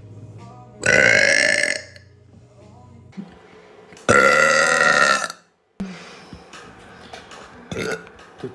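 Two loud burps from women: a short one about a second in, and a longer one of over a second about four seconds in.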